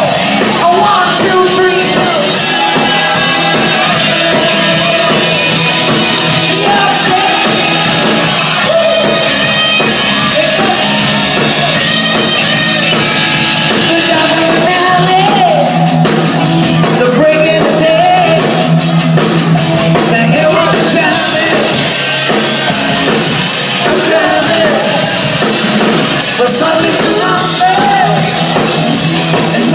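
Live rock band playing loud: a singer over electric guitars and a drum kit, with a quick cymbal beat through the middle stretch.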